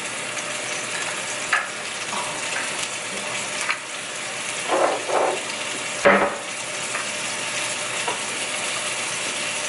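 Garlic and vegetables sizzling steadily in a hot frying pan. A few short knocks and clinks sound over it, the loudest about six seconds in.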